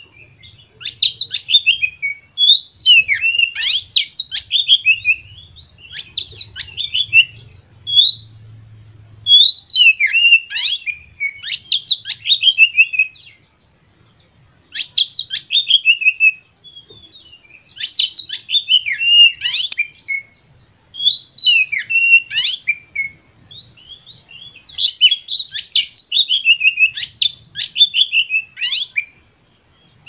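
Oriental magpie-robin singing a fired-up song of rapid chattering notes and down-slurred whistles. The phrases last one to three seconds and are broken by short pauses. It is the excited song used to provoke other magpie-robins into singing.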